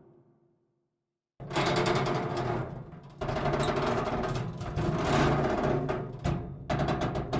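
Sound effects of straining metal: deep groaning and creaking with a low rumble, starting about a second and a half in. Near the end comes a fast run of sharp cracks.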